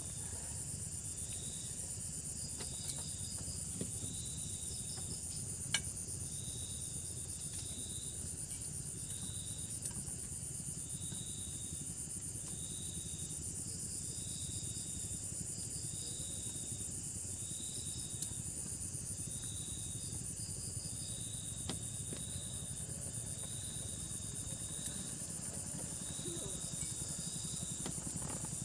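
Night insects calling: a steady high-pitched cricket trill, with a second short chirp repeating every second or two, over a low steady rumble and a few faint clicks.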